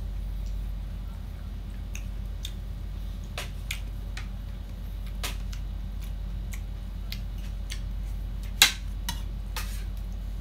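Close-up eating sounds: scattered soft mouth clicks and smacks from chewing rice and boiled pork eaten by hand, over a steady low hum. Near the end there is one sharper clink from a metal ladle in a ceramic soup bowl.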